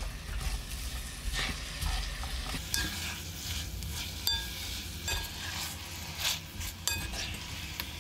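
Fish cake strips and sliced onion sizzling in a frying pan of boiling seasoning sauce, stirred and turned with a silicone spatula and a spoon. Steady frying hiss with scraping and clicks, and a few sharp ringing clinks of the utensils against the pan.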